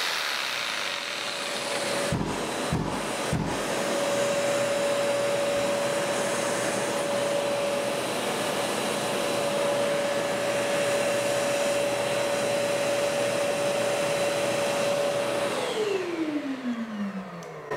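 Shop dust extractor motor running steadily with a constant hum, kept on by its auto-on run-on delay after the power tool has stopped. There are three brief knocks about two to three seconds in, and near the end the motor shuts off and winds down with a falling pitch.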